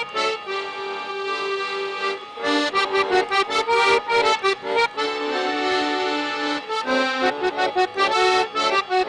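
Accordion-led traditional music playing an instrumental passage, with quick melodic runs over a steady rhythm.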